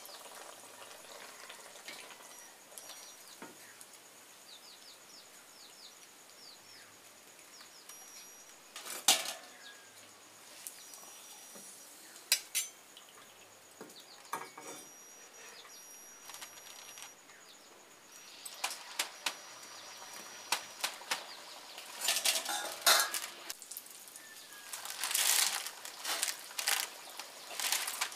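Metal skimmers clinking against an iron kadai and steel bowls while pithas deep-fry in hot oil with a faint steady sizzle. A few sharp clinks stand out in the middle, and from about two-thirds through there is busier rustling and handling noise.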